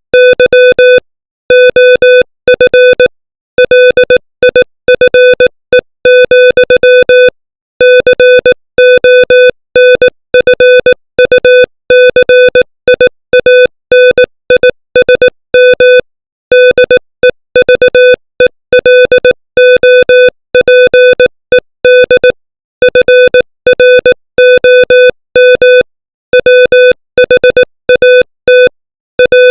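Morse code sent as a single steady-pitched beep tone keyed on and off at 18 words per minute: quick dots and dashes run together into letters, with short gaps between letters and longer gaps between words.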